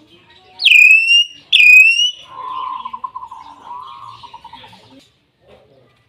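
Hill myna calling: two loud whistles close together, each swooping sharply down in pitch and then held briefly, followed by a lower, wavering trilled call that lasts about three seconds.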